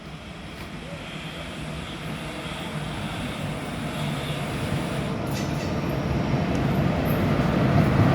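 Express train approaching, growing steadily louder as it nears: a steady low hum and an even rumble of the train on the rails.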